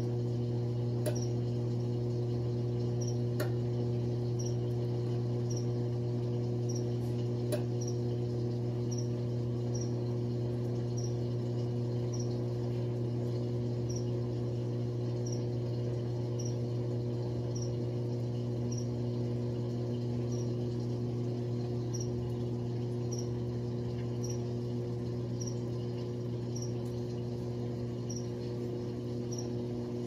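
Electrolux Top 8 top-loading washing machine running with a steady motor hum, and a faint high chirp about once a second over it.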